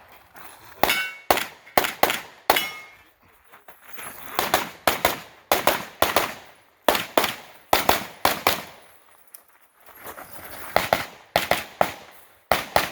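Rapid gunshots in quick strings with short pauses between them, mixed with the ring of steel targets being hit.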